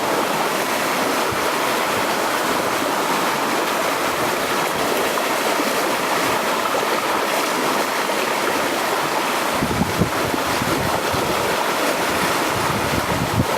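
Sea waves washing against the shore, a steady rush of water. From about two-thirds of the way through, wind buffets the microphone with low rumbling gusts.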